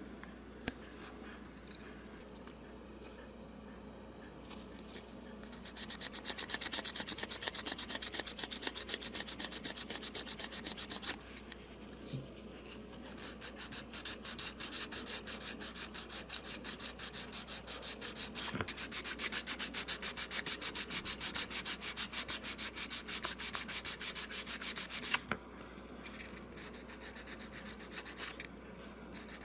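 Sandpaper rubbed in rapid back-and-forth strokes over the filler-patched body of a small Matchbox garbage truck model. The strokes come in two long spells with a short break between them, then turn lighter near the end.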